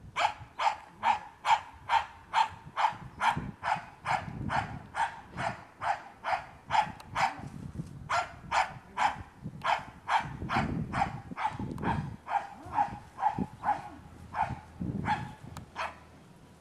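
Australian cattle dog (blue heeler) barking over and over, about two sharp barks a second, with a short break about halfway through; the barking stops about a second before the end.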